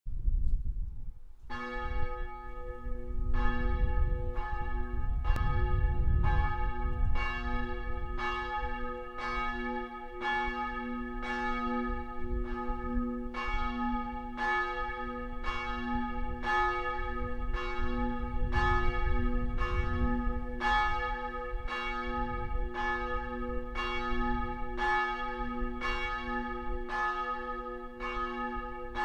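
A single church-tower bell tolling, struck at a steady, even pace and ringing on between strokes, calling people to the service. A low rumble rises and falls under it.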